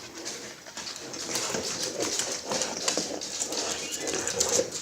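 Puppies playing over a toy: scuffling and clicking, with short dog sounds mixed in.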